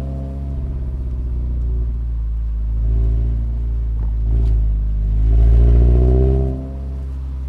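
Toyota 86's flat-four boxer engine heard from inside the cabin, pulling under throttle: the revs climb in steps, rise most strongly about five seconds in, then fall away abruptly about six and a half seconds in.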